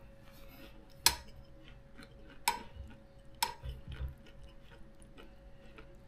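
A metal spoon clinking against a bowl of food: three sharp clinks about a second and a half apart, with fainter taps and scrapes between them, over a faint steady hum.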